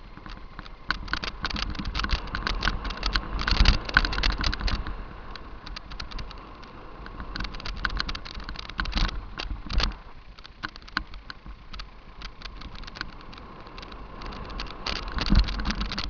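Downhill mountain bike rattling over a rough dirt trail: rapid, irregular clicking and clatter of chain and frame with tyre noise and a low rumble underneath. Heavier knocks from bumps come about 4 seconds in, near 10 seconds and about 15 seconds in.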